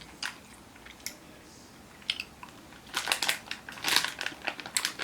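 Close-up chewing of a soft, squishy Skittles Squishy Clouds candy: wet mouth clicks, a few at first, turning dense and quick about three seconds in.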